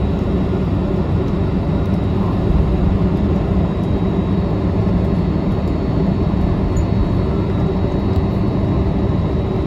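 Steady drone of a jet airliner heard from inside the cabin, a constant low rumble with a faint whine above it and no change in pitch.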